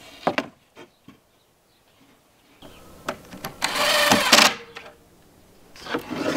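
Plywood panels knocking and clattering as a wooden box is set up and fitted together, with a short loud whirr of a power tool about four seconds in.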